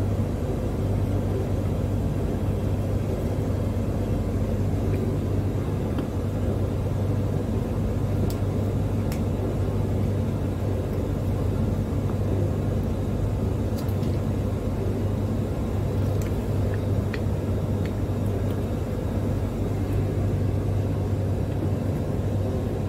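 A steady low hum with a strong deep tone, unchanging throughout, with a few faint scattered clicks and taps from cables and a plastic junction box being handled.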